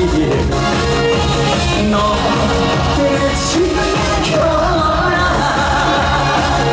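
Korean trot song played loud on a live sound system, with a steady beat and a singing voice over the band.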